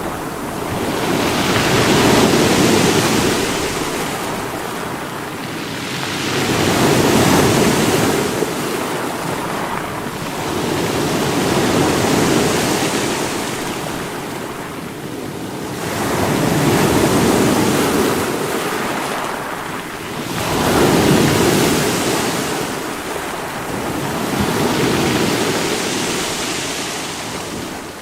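Sea waves hitting rocks, the wash swelling and falling away in slow surges about every four to five seconds, six in all.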